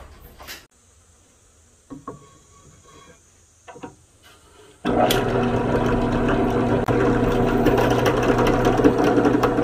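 A few light knocks, then about five seconds in an electric drill starts and runs steadily, boring through a wooden handle block through the hole in a steel knife tang.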